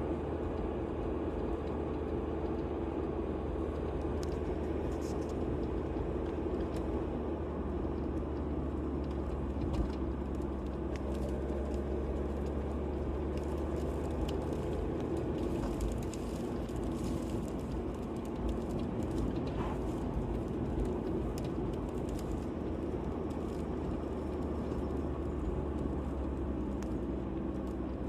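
Steady motor-vehicle running noise: a continuous low engine and road rumble with a constant hum, and faint small rattles here and there.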